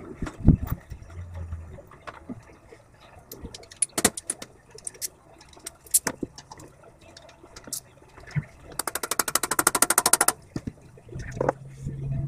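Scattered clicks and knocks of hand tools and metal parts being handled. Just before the two-thirds mark comes a fast, even run of clicks lasting about a second and a half.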